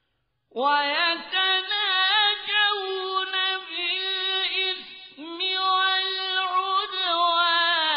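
Male Qur'an reciter chanting in the melodic mujawwad (tajweed) style, unaccompanied, with long held and ornamented notes. The voice comes in about half a second in, after a brief silence.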